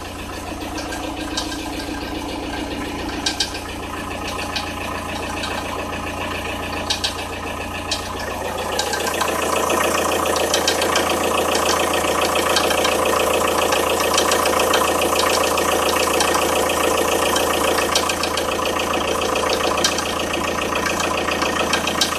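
Audi A6 C4's 1.9 TDI four-cylinder turbodiesel idling cold, with an uneven knocking heard from the timing-belt area. The tensioner rollers are in order, so the cause of the knock is unknown. The engine sound gets louder about nine seconds in.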